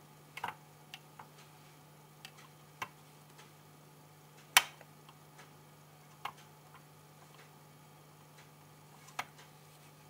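Scattered light clicks and taps, about eight of them at uneven intervals with the loudest about four and a half seconds in, as gel glue is dabbed onto a microwave's membrane control panel with a small pointed applicator and the glue tube is handled. A faint steady low hum runs underneath.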